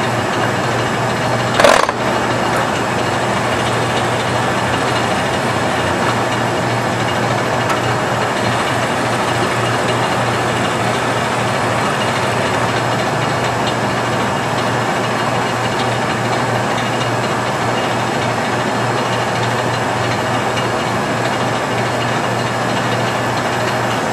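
Geminis GE 1200-5-3G heavy-duty engine lathe running under its 50 HP main drive: a steady hum and whirr of motor and gearing that holds at one speed. A single sharp clunk about two seconds in.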